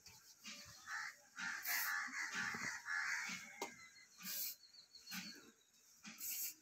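Hand-sanitizer spray bottle spritzing in short bursts about every two seconds as it is pumped into one pair of hands after another. An animal calls in the background around the middle.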